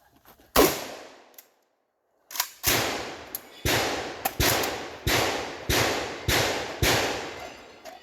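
Shotgun firing during a timed match stage: one shot about half a second in, then after a pause a quick string of about six shots roughly 0.6 s apart, with fainter sharp clicks between them.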